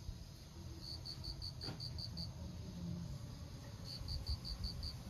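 Rapid high chirps, about five or six a second, coming in short trains that repeat every couple of seconds, over a low rumble of wind on the microphone. There is one short tap about a third of the way in.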